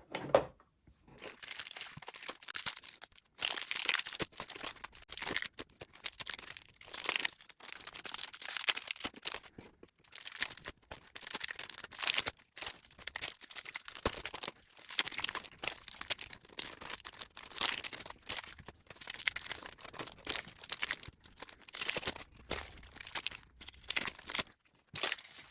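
Trading card packaging being opened by hand: plastic and foil wrapping torn and crinkled in repeated irregular rustling bursts.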